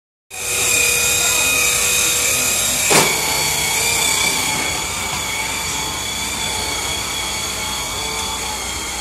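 Swivel Sweeper cordless floor sweeper running, its motor and spinning brushes giving a steady high whine as it is pushed over a hardwood floor. A single knock comes about three seconds in.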